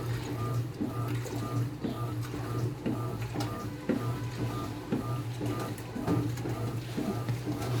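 Electrolux Essential Care 8.5 kg washing machine running mid-cycle: a steady motor hum with a rhythmic, repeating whir and soft knocks from the turning drum.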